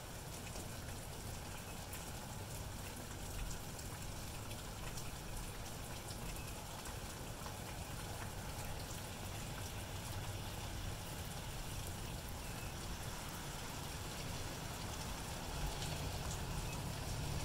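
Steady rain falling, an even hiss dotted with many small drop ticks, with a low rumble that grows louder near the end.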